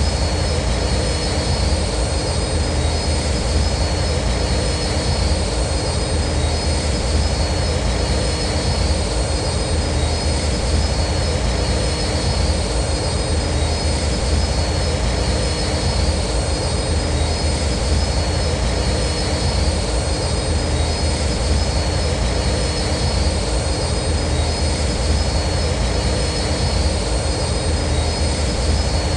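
Starfighter engine sound effect for a flying X-wing: a steady jet-like roar with a deep rumble and constant high-pitched whines.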